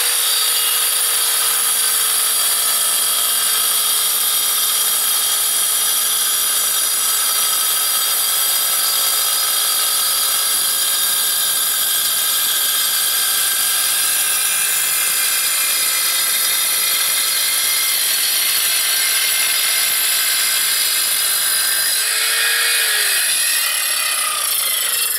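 Evolution R210SMS sliding mitre saw running at full speed with a diamond blade, grinding steadily through a perforated clay brick. Near the end the motor is released and the blade winds down.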